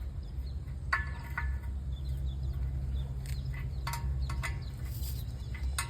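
Chickens clucking in several short calls, over a steady low rumble.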